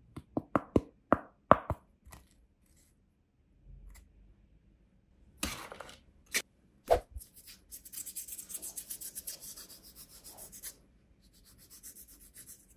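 Fingertips and nails tapping on a white plastic paint palette: five sharp taps, each with a short ringing tone, in the first two seconds. A few more knocks come about halfway through, then a few seconds of rapid light clicking.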